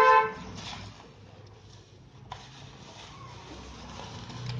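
Thin clear plastic bag rustling and crinkling while cables are handled inside it, with one sharp tap a little over two seconds in.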